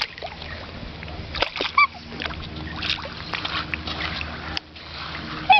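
Water splashing and sloshing around a group of black swans in shallow water, with a few sharp splashes and one brief swan call about two seconds in.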